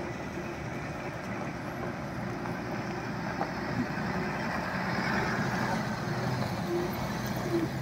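Tata tipper truck driving past on a loose gravel road bed: a steady diesel engine rumble with tyre-on-gravel noise, growing louder around the middle as it passes close.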